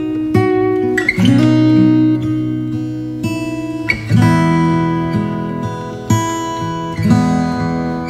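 Background music of acoustic guitar chords, each struck and left to ring out before the next.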